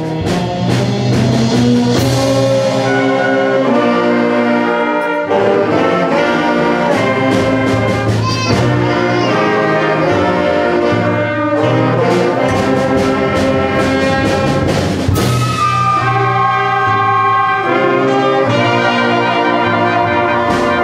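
Middle school symphonic band playing: brass and woodwinds in full sustained chords that change every second or so, with percussion strikes on the beats.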